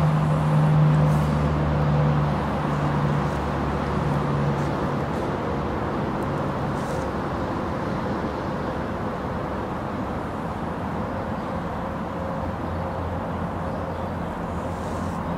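Steady outdoor rumble with a low motor hum that is strongest at the start and fades away over the first five or six seconds.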